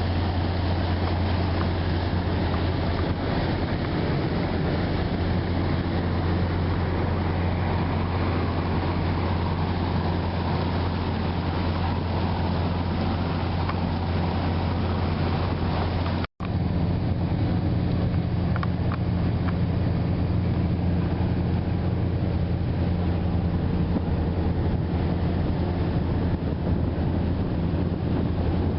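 Boat engine running steadily with a low drone, under wind and water hiss. The sound breaks off for an instant about halfway through, then carries on unchanged.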